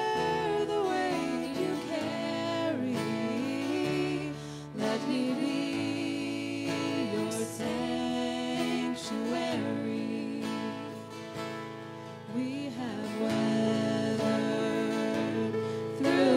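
A song sung by a voice with acoustic guitar accompaniment, at a steady level.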